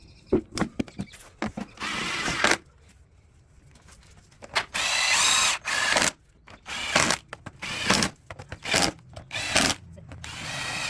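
Cordless drill-driver run in a string of short bursts, about half a second to a second and a half each, tightening screws on the motorcycle's carburettor assembly.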